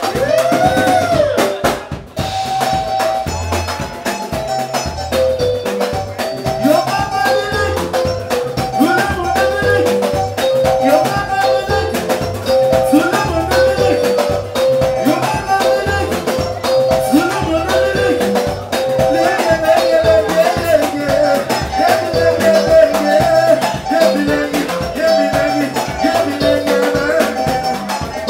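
Live soukous band music: a drum kit keeps a steady beat under quick, repeating high melodic lines.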